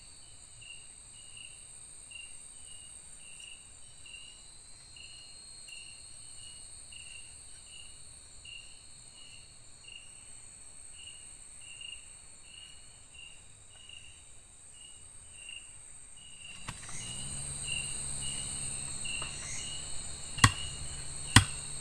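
Night insects chirping: a steady high-pitched trill with a shorter chirp repeating just under twice a second. Near the end, two sharp knocks.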